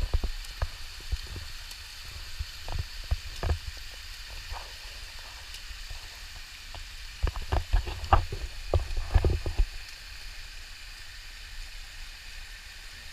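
Hot-spring stream water rushing steadily, with irregular low thumps and knocks that come thickest about seven to ten seconds in.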